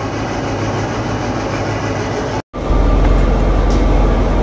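Kirovets articulated tractor's diesel engine running steadily after starting at once. About two and a half seconds in there is a short dropout at an edit, then a deeper, louder diesel rumble.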